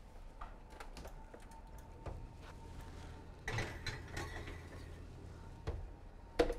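A metal muffin tin is slid onto a wire oven rack, giving a short scraping clatter, with a few light clicks and clunks around it. Near the end the oven door shuts with a sharp knock.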